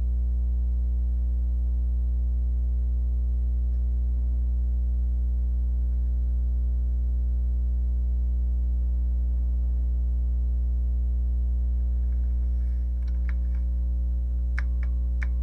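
Steady electrical mains hum with a ladder of overtones, loud and unchanging, with a few short clicks about two seconds before the end.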